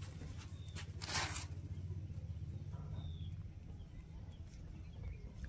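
Outdoor ambience with a steady low rumble while a newspaper hot-air balloon burns, a brief rush of noise about a second in, and a few faint bird chirps.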